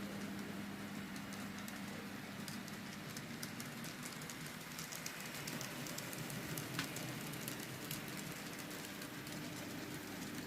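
N gauge model train running on its track: a steady electric motor hum with a patter of light clicks from the wheels on the rails. The hum shifts to a higher pitch near the end.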